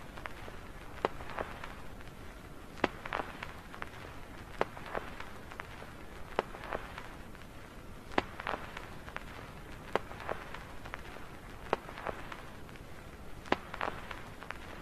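Sharp taps or clicks coming in pairs, a pair about every two seconds, over a steady faint hiss.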